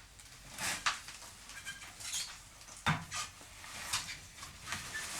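Scattered metallic clinks and knocks as a bicycle is handled and moved, with a sharper knock about three seconds in.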